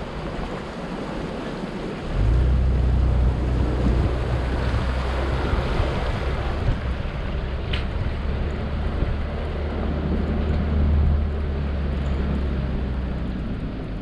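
A 4x4 vehicle driving off-road, with a steady rumble and wind noise on the microphone; the low rumble gets louder about two seconds in and stays, with one short tick near the middle.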